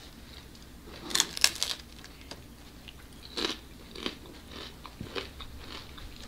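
Crunching as someone bites into and chews crispy fried food: a quick cluster of loud crunches about a second in, then a few single crunches spread through the rest.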